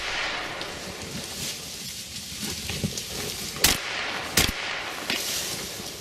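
Two shotgun shots about three-quarters of a second apart, a little past halfway through, over a steady hiss.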